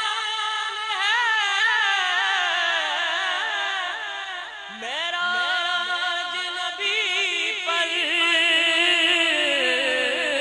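A man's voice singing a naat without instruments: long held notes with ornamented wavering. There is a short break about four and a half seconds in before the next phrase begins.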